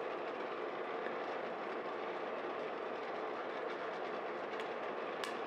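Steady fan noise from a turbo convection oven roasting coffee beans in a West Bend Stir Crazy popper, with the beans cracking in first crack: a few faint pops and one sharp crack near the end.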